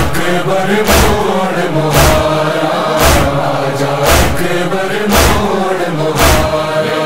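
Chorus of voices chanting a held, wordless line between verses of a noha, over rhythmic chest-beating (matam) that lands as a sharp thud about once a second.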